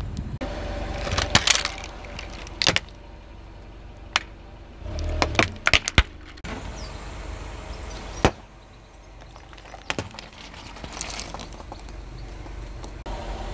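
Car tyre rolling slowly over small objects on asphalt and crushing them: a string of sharp plastic cracks and crunches at irregular moments, loudest about a second and a half in and again around five to six seconds in, over the car's low rumble.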